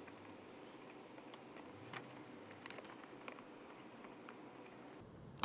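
Flathead screwdriver prying at the plastic retaining clips of a car grille: faint scattered clicks and scrapes of plastic, then one sharp snap near the end as a tight clip lets go.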